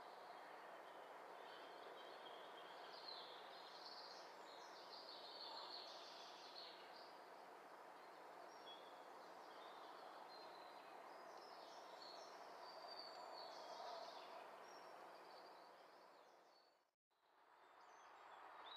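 Faint woodland ambience: small birds chirping and singing over a steady hiss, dipping to silence for a moment near the end.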